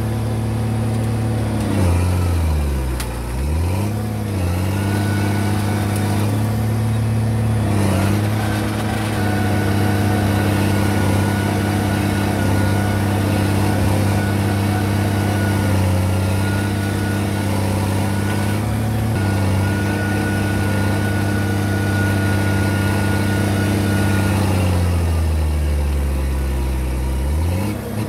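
Komatsu D50A crawler dozer's diesel engine running hard at a steady pitch, twice pulling down sharply and then recovering, once a few seconds in and again near the end.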